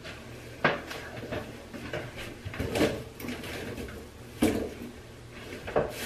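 Several sharp clunks and knocks with quieter rattling between them, as things are picked up and moved about on a bathroom shelf.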